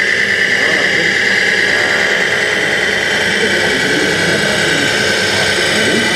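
Radio-controlled scale tipper truck driving on dirt: a steady whir with a high whine and a hiss over it, no pauses.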